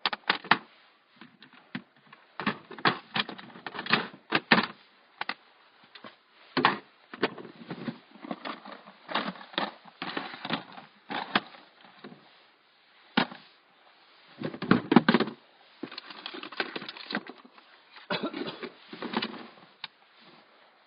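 Irregular knocking, clattering and rustling of objects being handled, a few sharp knocks standing out among longer rustling stretches, the loudest a clatter about fifteen seconds in.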